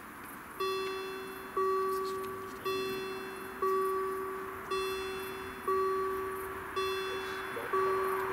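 Railway level crossing warning bell ringing as the crossing activates, one ding about every second, each a single ringing tone that dies away before the next.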